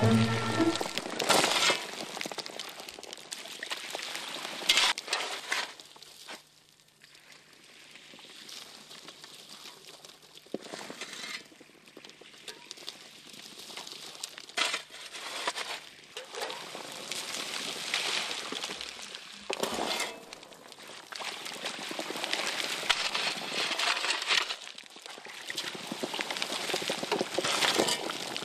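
Water thrown by the scoopful onto a slanted wooden gold-washing board, splashing and washing sand and pebbles down it, with the stones clinking and rattling. The splashing comes in repeated surges a few seconds apart.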